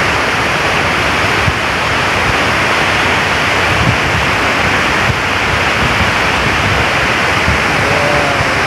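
Water pouring from the open spillway gates of a hydropower dam into the rocky river below: a loud, steady rush of falling and churning water.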